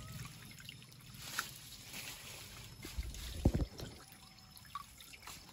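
Stream water sloshing and splashing softly as a mesh net trap is handled in it, with one dull low thump about three and a half seconds in.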